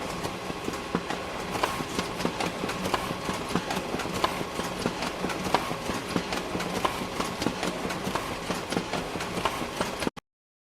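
Photocopier running: a steady mechanical hum with a rapid, irregular clatter of clicks from its feed and drive mechanism. It cuts off suddenly near the end.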